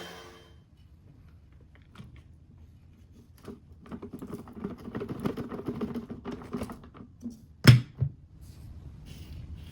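A Hoover vacuum cleaner's motor winding down after being switched off, fading out within the first second. Then light clicking and rattling handling noises for a few seconds, and a sharp knock near the end.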